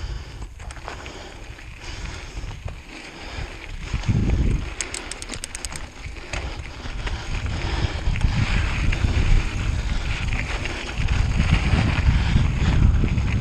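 Wind buffeting the microphone on a moving camera, a rough rumble that grows louder in the second half. About five seconds in there is a short run of rapid, even ticks.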